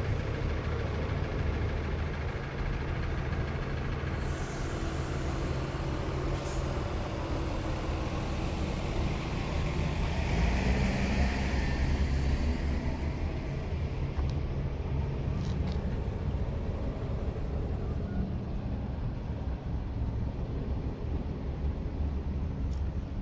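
Heavy vehicle engines running, a steady low rumble and hum. A long hiss swells from about four seconds in, is strongest around ten to twelve seconds, then fades.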